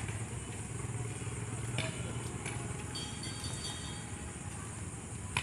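Steady low engine-like rumble with a few brief clicks, the sharpest near the end.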